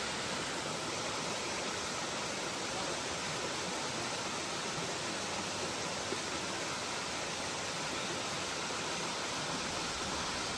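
Waterfall: water falling onto rocks in a steady, even rush.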